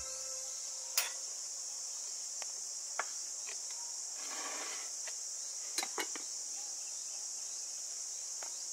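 Steady high chirring of insects, with a few sharp clicks and taps of cooking utensils and bowls being handled: the loudest about a second in, another about three seconds in, and two close together near six seconds.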